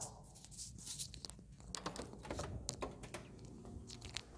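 Scattered light clicks and taps, irregular and fairly quiet, as a lever-handled door is opened and someone steps in onto a hardwood floor.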